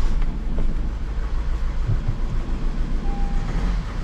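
Honda CR-V diesel engine running roughly just after starting with its number 3 injector unplugged: an uneven, lumpy low rumble from a heavy misfire.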